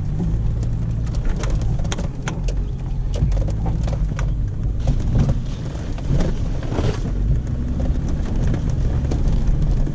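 An off-road 4x4's engine running steadily in heavy rain, with many sharp raindrop spatters and ticks over it.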